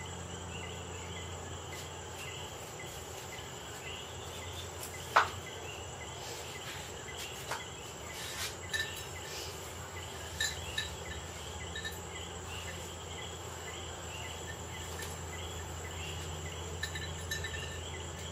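Crickets chirping faintly over a steady low hum and hiss. A sharp click about five seconds in is the loudest sound, followed by a few softer clicks and knocks.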